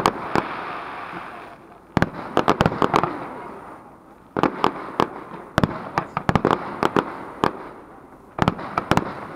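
Aerial firework shells bursting overhead in about five quick groups of sharp bangs, each group followed by a fading rumble of echo and crackle.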